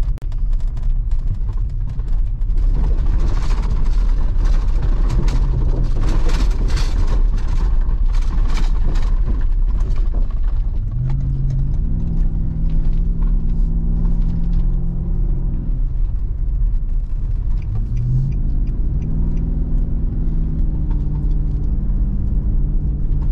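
Steady road and engine rumble heard from inside the cabin of a moving Nissan Y62 Patrol. Tyre and road noise is rougher over the first half. The engine note rises twice as the vehicle accelerates, about halfway through and again about three quarters of the way through.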